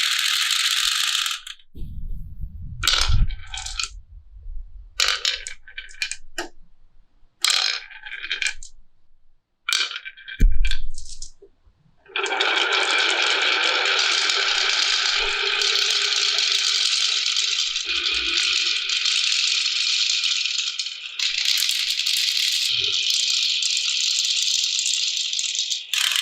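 Glass marbles rolling and clattering down a wooden marble run. For about the first twelve seconds there are separate runs of clicks and rolling with a few low rumbles. Then it becomes a continuous dense rattle of many marbles cascading at once.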